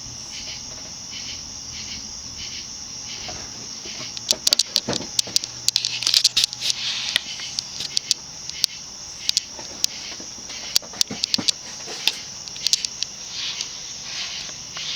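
A View Fan-made Moss Tropical Breeze ceiling fan runs on low speed, its small motor giving a faint steady hum. Over it sits a louder, high-pitched chirping in regular pulses. Scattered sharp clicks come in through the middle.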